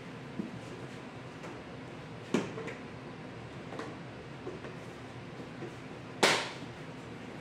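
Kitchen handling knocks: two sharp knocks about four seconds apart, the second the louder, and a few light clicks as a plastic food container and other items are picked up and set down on the countertop, over a faint steady hum.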